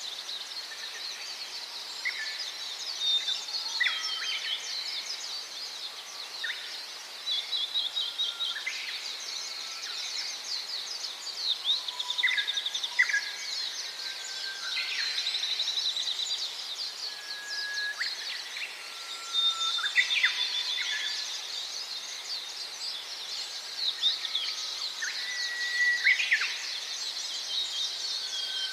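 Many small birds chirping and calling at once in a busy chorus: continuous high, fast chatter, broken every second or two by short, steady whistled notes lower down.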